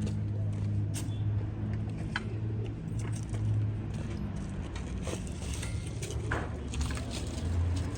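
Steady low motor hum with scattered light knocks and clicks.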